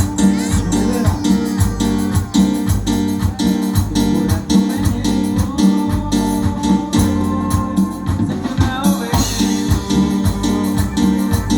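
Cumbia band music: a plucked guitar over a strong bass line and a steady percussion beat.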